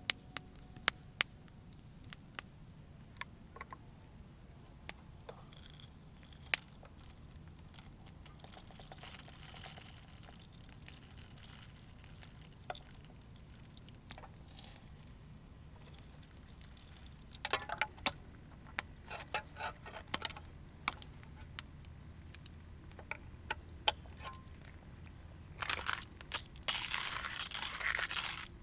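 Bouts of crinkling, rustling handling noise, with scattered sharp clicks between them; the longest and loudest bout comes near the end.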